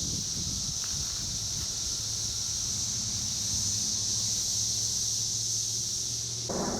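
Brood X periodical cicadas in a steady, high-pitched chorus, with a faint low hum beneath it. Near the end the lower background changes abruptly.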